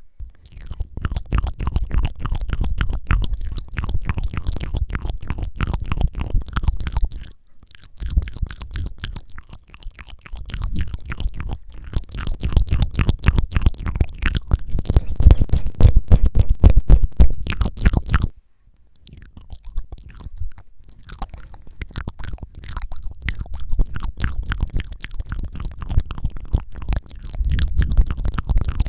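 Close-miked mouth sounds: rapid wet tongue flutters and clicks in quick trains. They come in three runs, with short breaks about seven seconds and eighteen seconds in.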